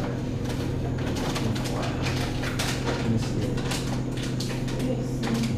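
Kitchen food-preparation noise: scattered irregular knocks and clinks over a steady low hum.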